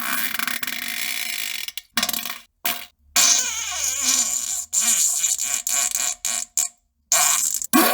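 A run of loud fart sounds edited back to back: a long sputtering one of nearly two seconds, then shorter blasts and another long one, each cut off abruptly by brief silence.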